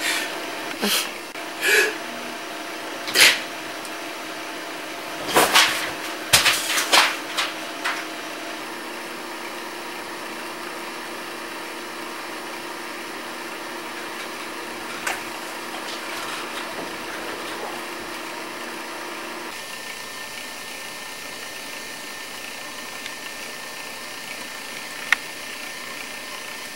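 A person's short sneeze bursts, about half a dozen in the first eight seconds, the densest cluster around six seconds in, over a steady electrical hum. After that only the hum remains, with one sharp click near the end.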